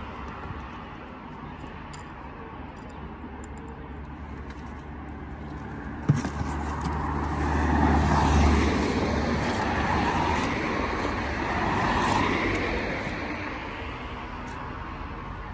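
Road traffic passing close by, swelling twice in the second half as vehicles go past, over a steady outdoor hum. A single sharp knock about six seconds in.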